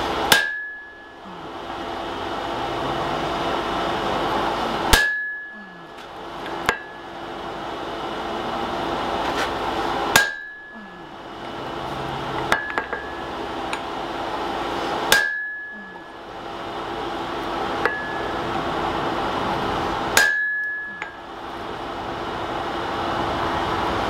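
Hammer blows on a handled hot punch being driven into a glowing wrought-iron hammer blank on the anvil. There are five heavy blows about five seconds apart, each a sharp clang with a short high ring, and a few lighter taps between them. A steady rushing noise runs behind them.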